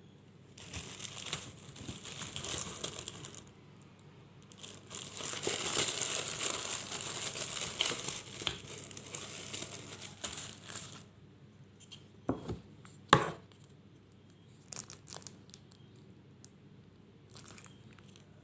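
Plastic packaging of an acrylic stand crinkling and tearing as it is unwrapped, in irregular bursts for about ten seconds. After that come a few sharp hard clicks, one louder than the rest, then some lighter ticks as the pieces are handled.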